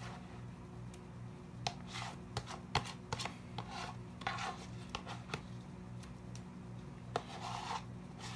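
A spoon scraping and clicking against the side of a bowl in uneven strokes, stirring a thick mixture of cream of mushroom soup, lemon juice and milk until smooth.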